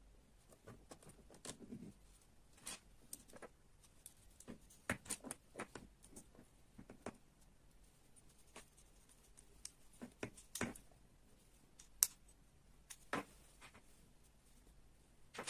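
Irregular light clicks and taps of small parts being handled and fitted together while a model kit is assembled. The sharpest clicks come in the second half.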